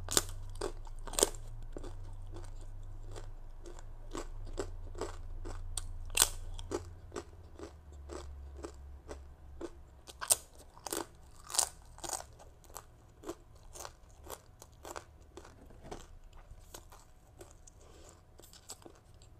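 Close-up crunching and chewing of a crisp toasted sesame rice cracker (bánh đa) eaten with green mango salad: irregular sharp crunches, louder in the first half and softer later.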